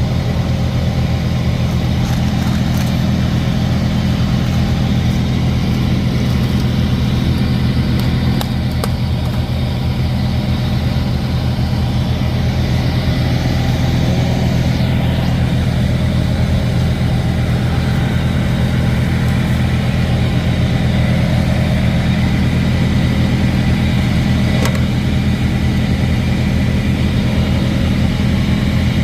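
Diesel semi-truck engine idling steadily, a constant low drone.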